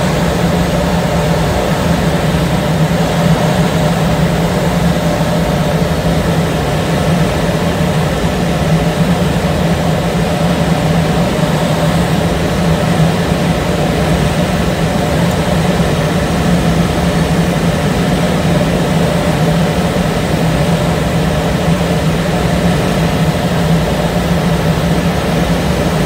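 Steady drone heard from inside a glider's cockpit on aerotow: the tow plane's engine and propeller droning ahead, mixed with air rushing over the canopy, unchanging throughout.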